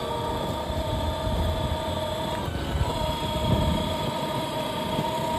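Electric drive motors of a 12-volt ride-on toy car whining at a steady pitch as it drives, over the rumble of its plastic wheels on the ground. The whine drops out briefly about halfway through, then picks up again.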